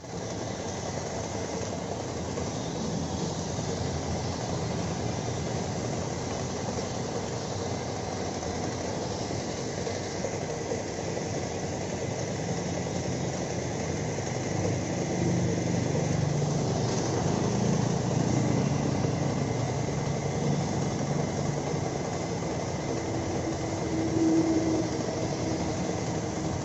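Steady running noise of a spray-painting rig: a motor hum under the hiss of compressed air through a gravity-feed paint spray gun, with no break.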